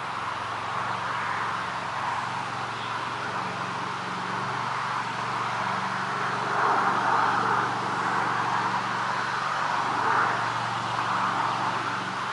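Dense frog chorus at a pond, a continuous mass of calls that swells and fades every second or two over a steady low hum.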